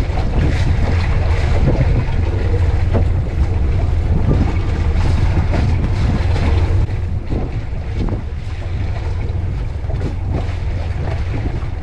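Strong wind buffeting the microphone aboard a small boat, a loud low rumble, with water splashing against the hull and a few short knocks. The wind eases a little about seven seconds in.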